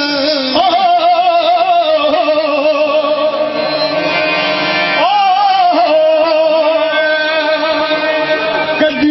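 Qawwali: a man singing long, wavering held notes over a steady harmonium drone. The voice slides up to a new note about half a second in and again about five seconds in.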